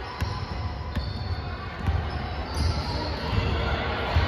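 Basketball dribbled on a hardwood gym floor: repeated low thuds of the ball striking the court, with the game's general noise growing louder in the second half.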